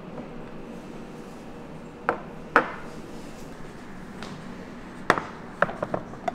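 Ceramic dishes and bowls being set down on a wooden table: sharp clinks and knocks, two about two seconds in and a quick cluster of four or five about five seconds in, over a steady room hum.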